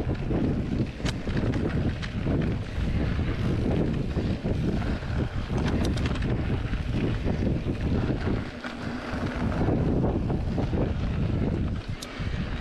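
Wind buffeting the microphone and mountain-bike tyres rolling over a dirt and gravel trail, with occasional sharp clicks and rattles from the bike. The low rumble drops briefly about two-thirds of the way through.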